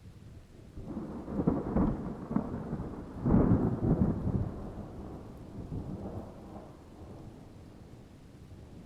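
A thunder clap. It starts with a low rumble, crackles loudest about one and a half and three and a half seconds in, then rolls on and slowly fades.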